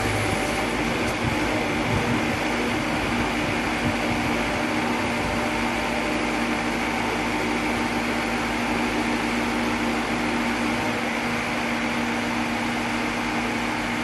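Crawler-mounted auger drilling rig running steadily as it raises its spiral auger out of the hole: an even mechanical hum with a few low held tones.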